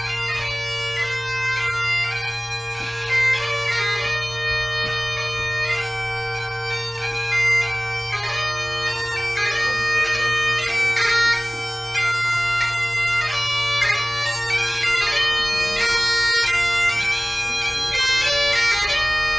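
Bagpipes playing a tune: steady drones held underneath while the chanter's melody steps quickly from note to note.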